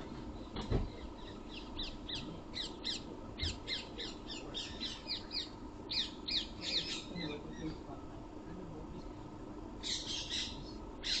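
A bird calling: a quick series of short, falling high chirps for several seconds, then a brief harsher burst near the end.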